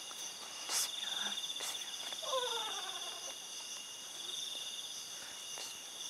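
Night insects chirring in a steady, high, finely pulsing trill, with a couple of brief soft rustles.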